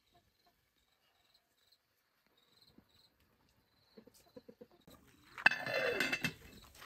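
Faint insect chirping, then a few light clinks of utensils at a cooking pot. About five and a half seconds in comes a sharp clank, followed by a brief louder sound that falls in pitch.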